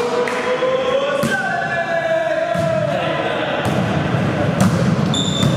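Several voices across a sports hall holding long, sliding chant-like calls, with sharp thuds of the volleyball being struck about a second in and a few more times near the end.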